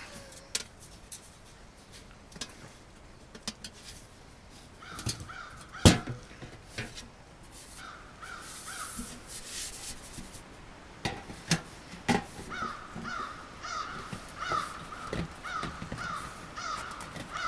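A crow cawing in runs of short repeated calls, a few around five and eight seconds in and a long run through the last five seconds. Between them, sharp knocks and clanks of sheet-metal stovepipe sections being handled and pushed together, the loudest about six seconds in.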